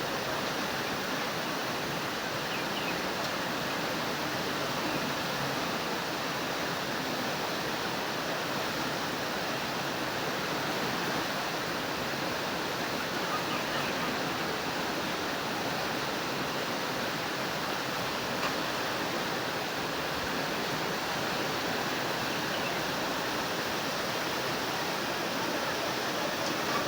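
Rushing floodwater: a steady, even rush of water with no let-up.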